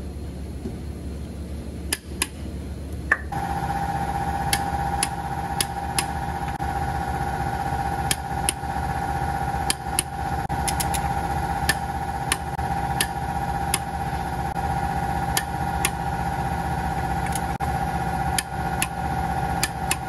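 Sharp clicks from a long torque wrench being worked around the bolts of a Cummins ISX cylinder head, coming every second or so at irregular spacing. Under them runs a steady, engine-like machine hum that sets in about three seconds in.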